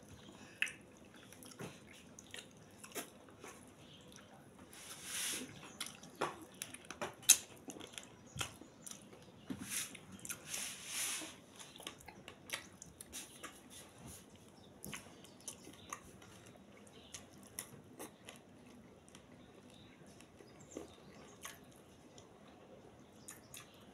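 A person eating with the fingers: chewing and lip-smacking, with many small scattered clicks and smacks, and two longer hissy sounds about five and ten seconds in.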